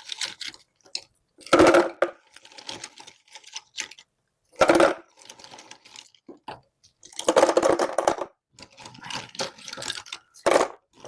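Shelled nuts being poured and scooped back into a one-jin jar: several bursts of hard clattering and rattling as the nuts fall against each other and the container.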